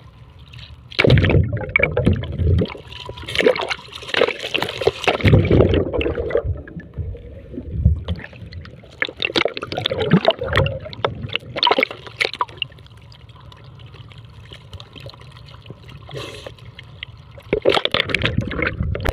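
Water splashing and gurgling around a swimmer's strokes in open water, coming in irregular bouts with a calmer stretch about two-thirds of the way through.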